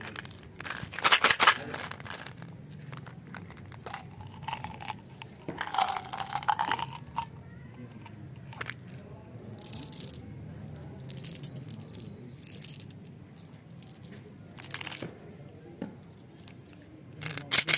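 A plastic Mentos gum bottle being opened and its sugar-coated gum pellets handled: bursts of rattling and plastic clicks, loudest about a second in and again around six seconds in, followed by quieter scattered clicks.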